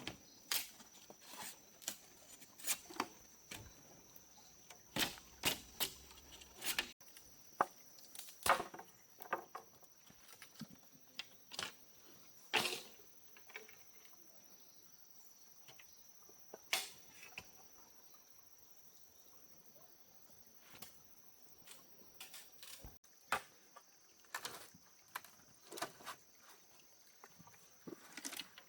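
Bamboo knocking and clicking irregularly as it is handled and worked, with a steady high insect trill behind it.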